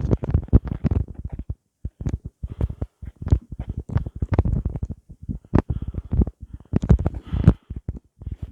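Irregular low thumps and rustling against a handheld camera's microphone as it is carried while walking: handling and buffeting noise.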